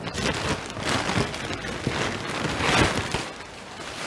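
Thin plastic carrier bag rustling and crinkling as a hand rummages inside it and lifts items out. It comes in irregular bursts of crackle, loudest a little before the three-second mark.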